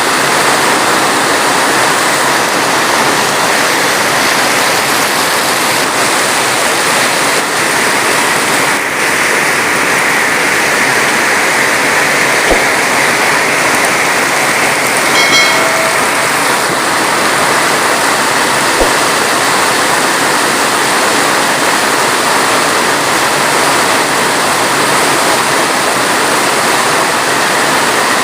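Heavy rain falling steadily, a dense even hiss with no thunder. About halfway through a brief pitched tone sounds for under a second.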